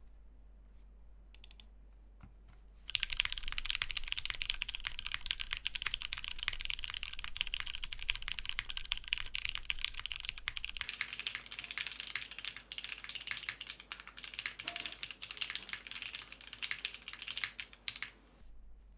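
Fast continuous typing on a mechanical keyboard with lubed vintage Cherry MX Black linear switches in an aluminium plate, o-ring gasket mount, and GMK Striker keycaps. It starts about three seconds in after a few faint clicks and stops shortly before the end.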